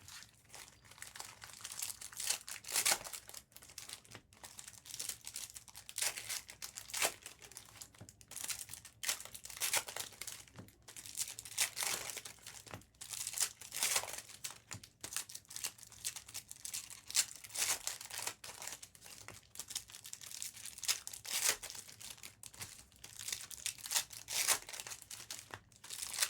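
Plastic wrapping on trading-card boxes and packs being torn open and crinkled by hand, an irregular crackling that keeps going throughout.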